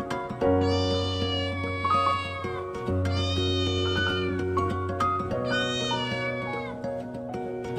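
A cat meowing three times, each meow rising then falling in pitch, over gentle background music.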